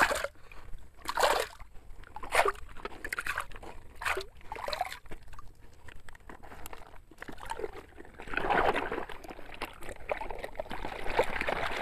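Water and wet sand sloshing and splashing in a string of short bursts, then a longer spell of sloshing from about eight seconds in, as a sand-filled toy dump truck is dug out.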